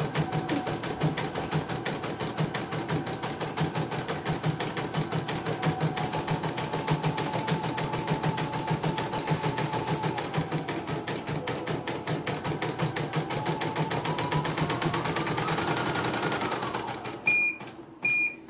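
CNY portable computerised embroidery machine, casing off, stitching a design on a test run after repair: a fast, even needle clatter over the drive motor, which rises in pitch shortly before stopping near the end. The machine then gives two short beeps.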